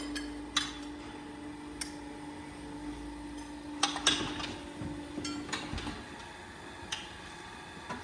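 Metal clanks and knocks from a steel hoof-trimming chute being worked, a handful of separate strikes, over a steady hum that stops about two-thirds of the way through.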